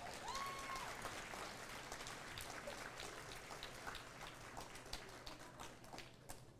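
Audience applauding, a dense patter of many hands clapping that gradually dies away, with a short high-pitched call from the crowd about half a second in.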